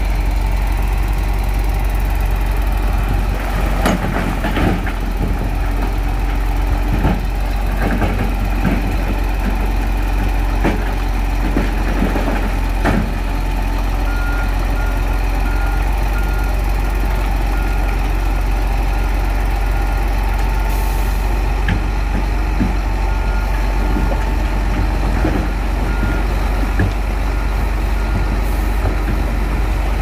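Heavy diesel earthmoving machinery running steadily under load, with scattered knocks and clanks in the first half. From about halfway through, a reversing alarm beeps over the engine at a steady pace, signalling a machine backing up.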